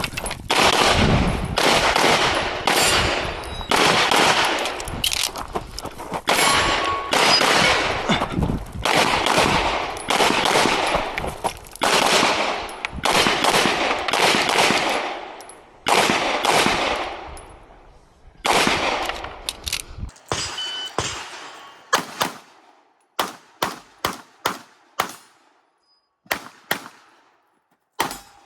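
Rapid strings of pistol shots fired during a competition stage, the reports trailing off slowly and running into one another, mixed with the clang of steel targets being hit. In the last several seconds the shots come as sharper, shorter cracks in quick clusters.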